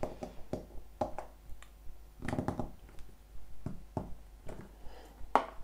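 A plastic Play-Doh tool with a flat end pressed and tapped onto modelling dough on a tabletop: a string of soft, uneven taps and clicks.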